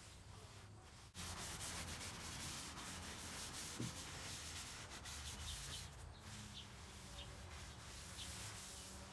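A paper towel rubbed back and forth over a bare wooden tabletop, wiping in gray wood stain: a faint, steady scratchy hiss that starts abruptly about a second in.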